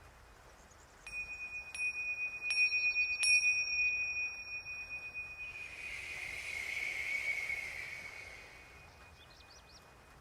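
A high-pitched metal chime struck four times in quick succession, about once every 0.7 s, its clear tones ringing on. A shimmering, wavering chime wash follows and fades out after about three seconds.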